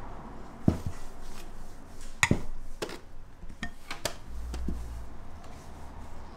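Dishes and utensils clattering: about half a dozen separate knocks and clinks, the sharpest under a second in.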